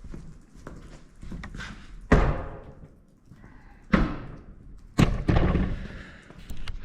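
Knocks and clunks of the flat drive belt being pulled off the pulleys of an early-1940s South Bend lathe: three heavy thuds about two, four and five seconds in, among lighter clicks.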